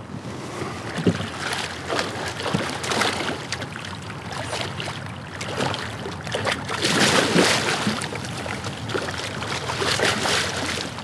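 Water splashing and knocking around a kayak as a hooked muskie is fought alongside, in uneven bursts, loudest about seven seconds in.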